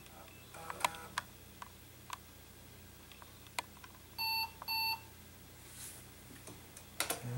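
IBM 5140 Convertible's internal speaker sounding two short, identical electronic beeps in quick succession a little past halfway, as the computer boots from floppy after a reboot. Sharp scattered clicks from the 3.5-inch floppy drives are heard around the beeps, with a quick cluster of clicks near the end.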